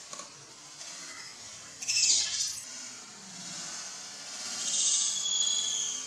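Macaques screeching: two harsh, high-pitched cries, one about two seconds in and a longer one near the end.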